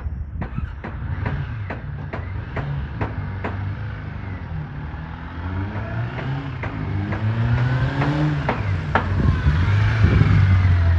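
1987 Honda CBR400R Hurricane's 400 cc inline-four engine running and being revved, its pitch rising twice, with a run of sharp clicks in the first few seconds. The engine has a running fault that the owner suspects is in the carburettors: fuel not flowing well, so it revs up and then cuts out.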